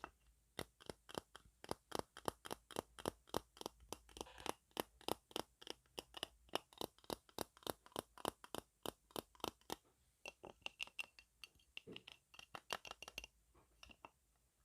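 Close-miked ASMR taps picked up by an earphone microphone: a run of quick, crisp clicks at about four a second, stopping shortly before the end.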